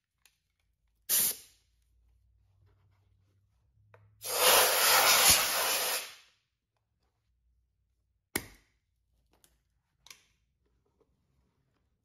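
Compressed air hissing from a nozzle in blasts to blow dust out of an opened car headlight: a short blast about a second in, then a longer one of about two seconds around four seconds in. A sharp click follows near eight seconds, then a few faint ticks.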